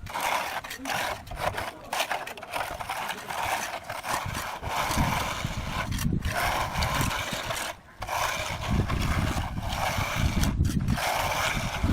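Repeated rough scraping strokes with short breaks between them, joined by a low rumble from about halfway through.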